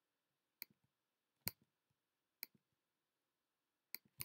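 Sharp clicks of a computer's pointer button, about five of them, roughly a second apart at first and the last two close together near the end, with near silence between.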